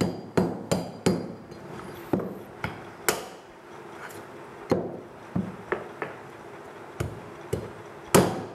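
Heavy meat cleaver chopping bone-in goat meat on a wooden log chopping block. There is a quick run of strikes at the start, then single chops spaced about a second apart, with the loudest near the end.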